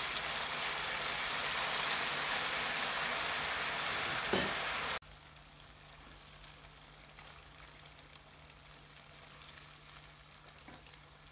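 Pempek fish cakes deep-frying in hot oil, a steady sizzle with a brief knock about four seconds in. About five seconds in the sizzle drops abruptly to a faint level, leaving a low steady hum under it.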